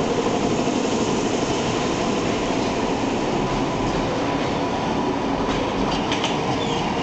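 London Underground A Stock train on the Metropolitan line pulling out of a station and running past close by: a steady rumble of wheels on rail, with a few short high squeals near the end as the last car passes.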